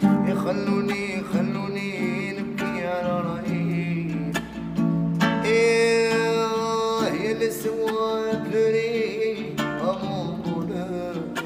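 A man singing an Arabic song with long, wavering held notes, accompanying himself on an acoustic guitar.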